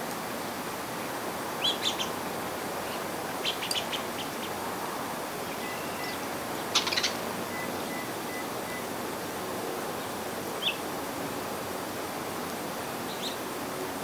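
Small songbirds at backyard feeders giving short, high chirps, scattered in small clusters and single notes, the loudest about seven seconds in, over a steady background hiss.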